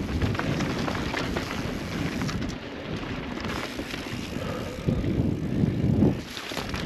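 Transition Spire mountain bike ridden along a dirt trail, heard from a helmet-mounted camera: wind buffeting the microphone over tyre noise and a steady clatter of small knocks and rattles from the bike over rough ground. The buffeting swells louder a few times near the end.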